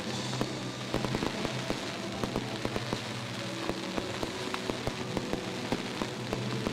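Fireworks crackling: a dense, continuous run of small pops and sharp cracks from bursting crackle stars overhead, with a few louder single cracks scattered through.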